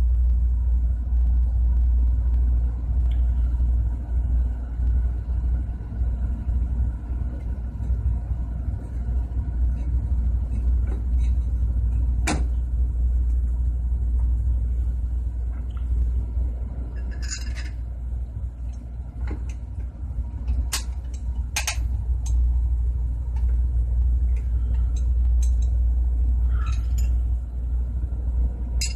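A steady low rumble throughout, with a few sharp clicks and clinks as the steel plates of a compressor valve are handled and set onto one another, one of the clearest about twelve seconds in.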